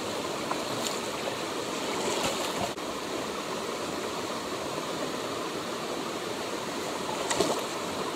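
Shallow stream water rushing steadily over a rocky riffle, with a few brief faint clicks about a second in, a couple of seconds in, and near the end.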